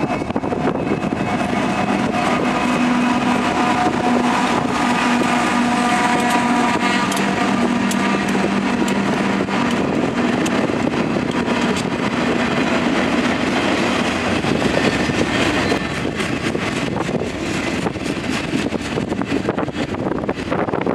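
Diesel locomotives of a freight train passing close by, their engines giving a steady droning tone that fades after about twelve seconds. Then the steady noise of autorack cars rolling past on the rails.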